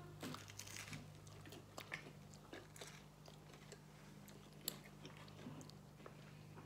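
Faint chewing of deep-dish pizza: scattered small wet clicks and smacks of mouths eating, with one sharper click a little past halfway, over a steady low hum.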